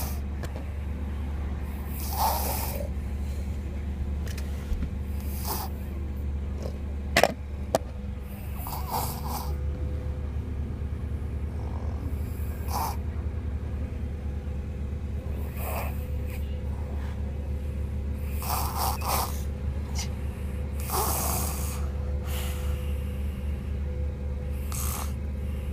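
A young child, three and a half years old, snoring in their sleep inside a car, one snore about every three seconds over the car's steady low rumble. A single sharp click sounds about seven seconds in.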